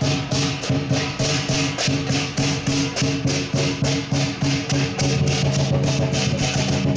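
Music with a quick, steady beat of about four strokes a second under sustained melody notes.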